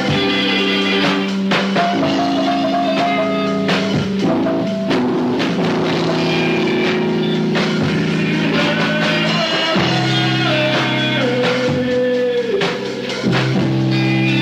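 Rock band playing: drum kit under held electric guitar and bass chords, with a sustained melody line that steps down in pitch. It drops away briefly near the end before the chords come back in.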